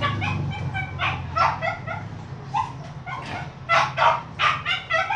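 Young puppy yelping: many short, high-pitched yips, some falling in pitch, coming faster and louder in the second half.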